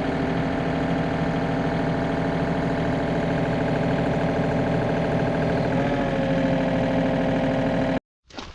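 Excavator's diesel engine running steadily, its pitch dipping slightly about six seconds in; it cuts off abruptly near the end.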